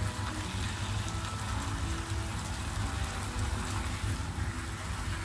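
Thick spiced sauce bubbling and sizzling in a nonstick frying pan as fish pieces are stirred through it with a silicone spatula, over background music.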